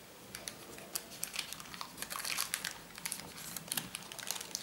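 Baking parchment paper crinkling and rustling as a paper-wrapped pastry rose is pushed into a muffin tin cell and the paper is pressed around it: faint, irregular little crackles.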